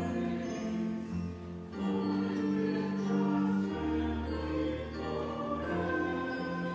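Church organ playing a slow hymn in long held chords that change about once a second.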